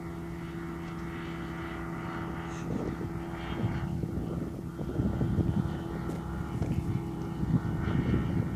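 Hurricane ultralight's engine and propeller droning steadily as the aircraft flies overhead. An irregular low rumble comes in about three and a half seconds in and grows louder.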